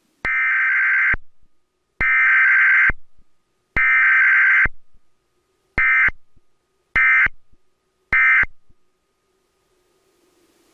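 Emergency Alert System SAME data bursts: the digital header sent three times, each burst just under a second long and about a second apart, then three short end-of-message bursts. This is a Required Weekly Test, with no attention tone or voice message between the header and the end-of-message.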